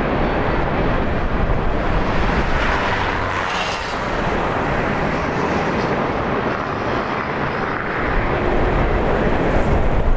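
Wind buffeting the microphone over the steady rush of the Fraser River's rapids.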